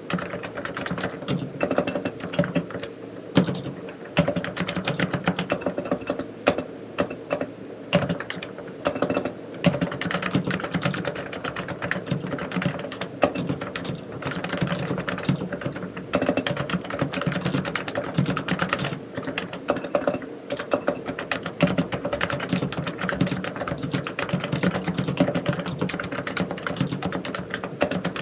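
Typing on a Realforce R3 silent tenkeyless keyboard with 45 g Topre electrostatic capacitive switches: a fast, continuous run of keystrokes with now and then a louder single stroke.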